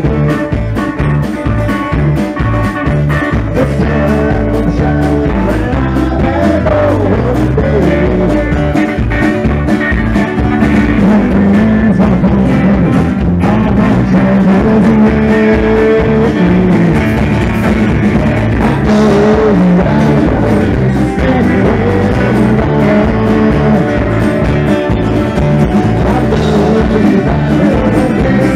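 Live southern roots rock band playing: guitars over a steady drum beat.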